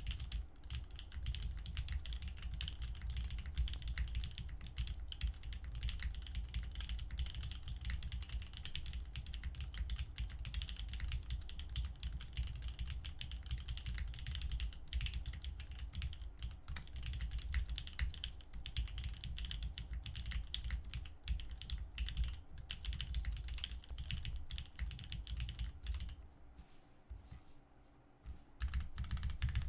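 Continuous fast typing on an Iron165 Founder's Edition mechanical keyboard, which has a stainless steel top and copper bottom case and a full POM plate. Its lubed Cherry 'Nixdorf' MX Black linear switches give a dense patter of key presses. The typing pauses briefly near the end, then picks up again.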